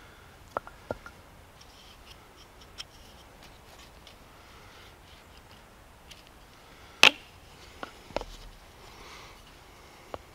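Scattered light wooden clicks and knocks as the parts of a bow-drill fire set (spindle, handhold, fireboard and bow) are picked up and set in place, with one sharp knock about seven seconds in.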